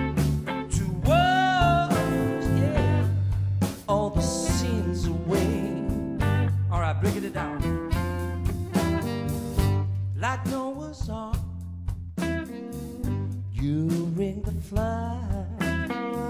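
Blues band playing live without vocals: a saxophone plays a melody over electric guitar, bass and drums.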